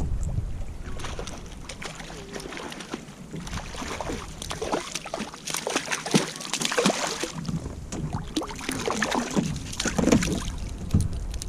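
Water splashing and sloshing close by as a hooked rainbow trout is played and brought to the kayak, in a run of irregular splashes. Wind rumbles on the microphone at the start and again near the end.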